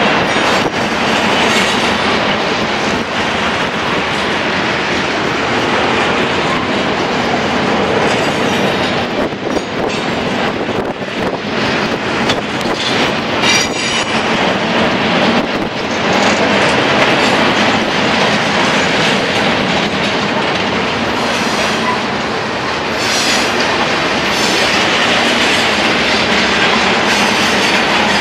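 Freight cars of a long mixed freight train rolling past at close range: a steady, loud noise of steel wheels on rail, with clacks over the rail joints.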